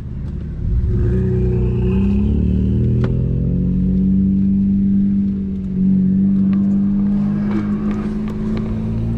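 Audi A6 C6 3.2 FSI V6 engine heard from inside the cabin, pulling away and accelerating. Its pitch climbs over the first few seconds, eases briefly about five and a half seconds in, then picks up again and runs steadily.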